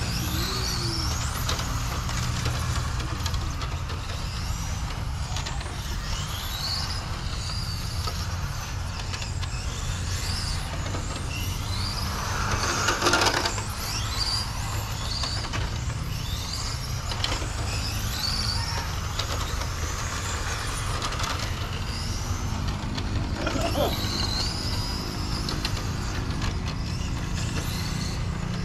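Radio-controlled cars' motors whining, their pitch rising and falling again and again as they accelerate and brake around the track, over a steady low hum. About 13 seconds in, a louder rushing burst stands out.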